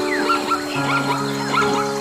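Background music with long held notes, over repeated short chirping animal calls, several a second.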